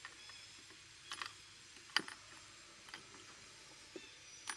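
Scattered light clicks and taps from monkeys and the rider moving about on a parked scooter, about five in all, the sharpest about two seconds in; the engine is not running.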